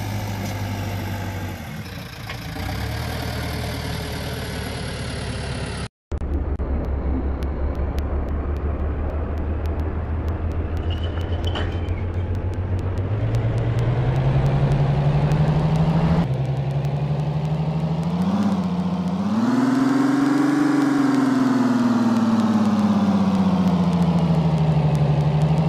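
Electric motors and plastic gearboxes of wired-remote toy excavators whining steadily as the arms work. The whine drops out briefly about six seconds in, climbs in pitch about halfway through, then swells higher and sinks back near the end.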